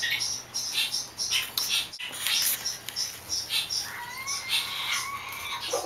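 Chicks peeping, short high peeps about three a second, with a longer, lower wavering call from about four seconds in to near the end.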